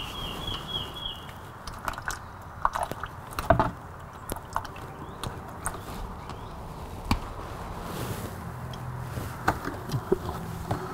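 Scattered clicks, taps and light scrapes of hands against metal at a motorcycle engine's water pump coolant drain, as the old crushed copper sealing washer is picked off, with the loudest knock about three and a half seconds in.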